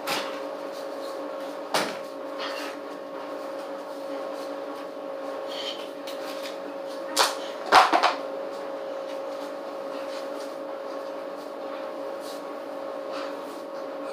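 Scuffling from a play fight on a concrete floor, with a few sharp knocks. The loudest is a cluster of knocks and a deep thud about eight seconds in, as of a body landing on the concrete. A steady hum runs underneath.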